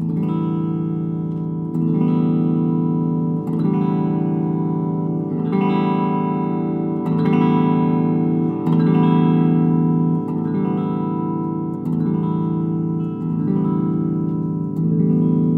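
Clean electric guitar chords strummed through an Ampeg V4 tube amp, with the treble control turned all the way up. Each chord is struck about every second and a half to two seconds and left to ring into the next.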